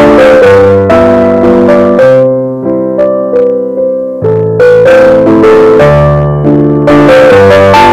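Background piano music: a melody over chords, briefly softer in the middle.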